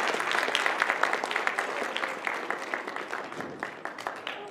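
Audience applauding, the clapping thinning out and growing quieter toward the end.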